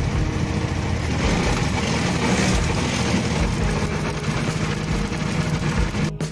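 Yamaha Mio M3 125 scooter's 125 cc single-cylinder engine and drive running with a loud, dense mechanical noise, the noise complaint that the mechanic traces to water in the final-drive (gearbox) oil. It cuts off abruptly near the end.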